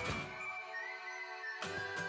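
Background music: a melody over a beat. The bass and beat drop out for about a second in the middle, then come back in.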